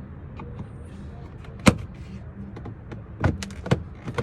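Plastic door trim around a car window switch being pried with a flathead screwdriver: a few sharp clicks and knocks of clips and tool on plastic, the loudest about a second and a half in.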